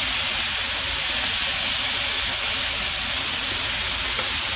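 Onion, tomato and peppers sizzling in a hot wok as a splash of vinegar goes in: a steady hiss of frying and steam.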